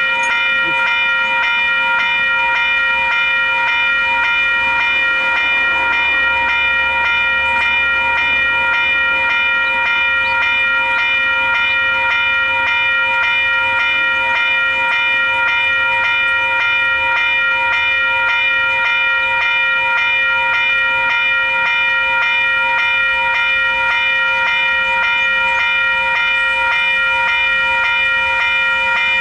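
Two Western Cullen Hayes electronic level-crossing bells (e-bells) ringing steadily with a rapid, even ding, the warning that a train is approaching the crossing.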